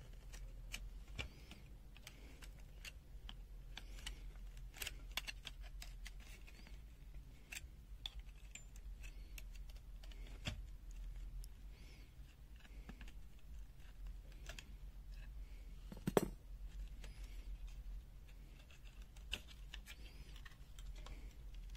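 Scattered small plastic clicks and taps as the clamp meter's plastic case is handled and pried apart. One sharper click comes about sixteen seconds in, over a faint low hum.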